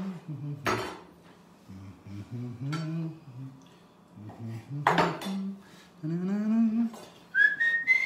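Chef's knife slicing lemons on a bamboo cutting board: a few sharp knocks as the blade strikes the board, with a man humming under them and a brief whistle near the end.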